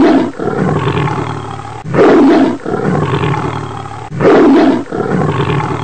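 Recorded tiger roars played by an augmented-reality tiger model: three loud roars about two seconds apart, with a quieter rumble between them.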